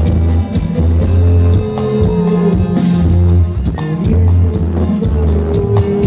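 Live band music with a steady bass line and regular drum hits under held mid-range notes, and a cymbal crash about three seconds in.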